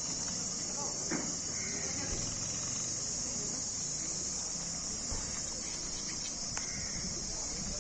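Steady, high-pitched buzzing of an insect chorus, with a faint murmur of a crowd's voices underneath.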